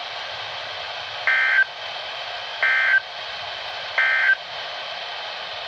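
NOAA Weather Radio sending the EAS (SAME) end-of-message code: three short data bursts about 1.4 s apart over steady radio hiss, marking the end of the warning broadcast.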